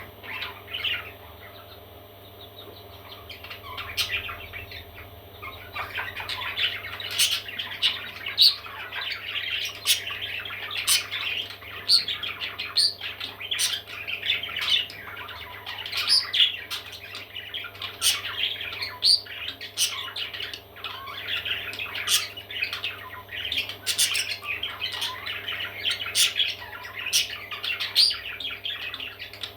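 Parrot chicks squawking and chirping in a continuous, busy chatter of short, sharp calls. It is quieter for the first few seconds, then louder and denser.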